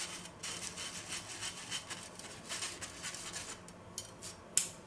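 A metal spoon scraping against the fine stainless-steel mesh of a sieve as it works powdered sugar through. It is a faint, fairly steady scratchy rasp with small ticks, and one sharper tap near the end.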